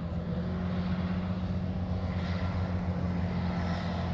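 Heavy tracked armoured vehicles, an armoured Caterpillar D9 bulldozer and a Merkava tank, with their diesel engines running in a steady, deep drone as they move.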